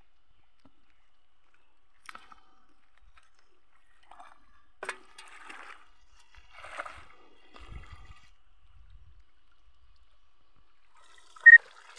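Muddy water sloshing and splashing in short, scattered bursts as a person wades through a shallow weed-choked pond. Near the end, a brief high tone, the loudest sound.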